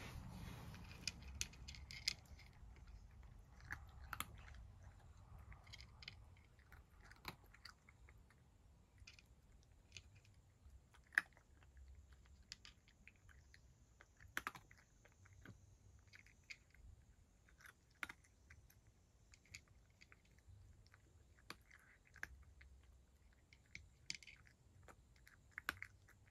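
Cat crunching dry kibble from a dish: faint, irregular crunches and clicks of chewing.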